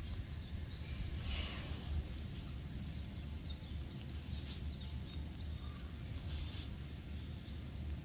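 Outdoor ambience: small birds chirping now and then over a steady low rumble, with a brief rushing hiss about a second in.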